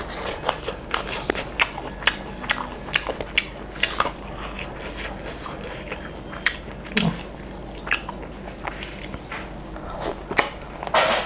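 A person chewing and biting mutton curry eaten by hand: many sharp mouth clicks in quick succession, busier in the first half, with a louder, longer noise near the end.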